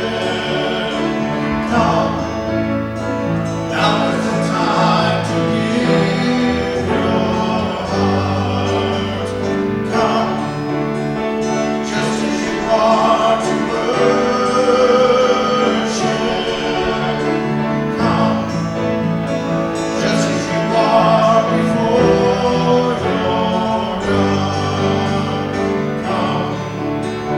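Worship song sung by several voices, with guitar and piano accompaniment: slow held sung notes over steady chords.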